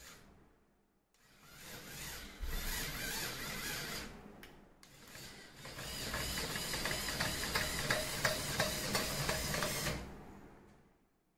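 Motors of a small two-axis drilling machine running: an electric drill and 12 V DC motors turning lead screws. They make a mechanical whir with a wavering whine that starts about a second in, cuts out briefly about four and a half seconds in, and fades out near the end.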